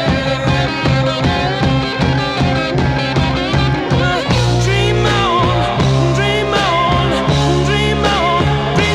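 Rock music played from a vinyl record: an instrumental passage with drums keeping a steady beat, bass, and a bending lead guitar line.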